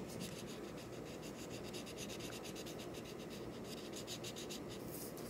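Felt-tip marker scribbling on paper in quick back-and-forth strokes, several a second, a faint steady scratching as a patch is coloured in.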